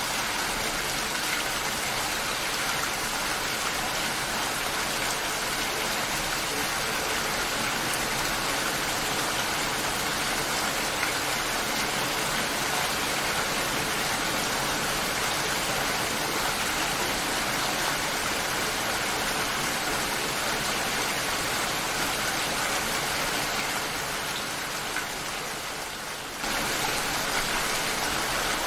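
Steady, dense rain falling. Near the end it dips a little and then comes back suddenly to full level.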